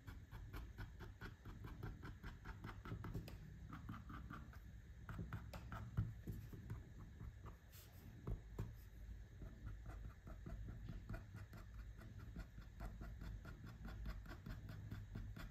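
Paint marker tip dabbing and scratching against a plastic light switch cover in many quick, light strokes, laying down grass, over a faint steady low hum.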